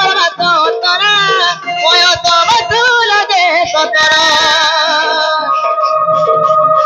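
Folk singing in a high voice, amplified through a microphone, over live dhol drum accompaniment. About halfway through the voice gives way to steady held notes from the accompaniment.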